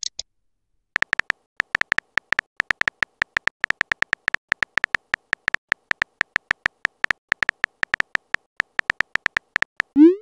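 Phone keyboard typing sound: a quick, slightly uneven run of short, high clicks, about four or five a second, starting about a second in, as a text message is typed.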